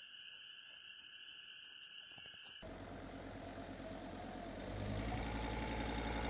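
A faint, steady chorus of frogs, cut off about two and a half seconds in by the engine of a Mercedes-Benz Sprinter van. The van is driving along a sandy dirt track and grows louder as it approaches and passes.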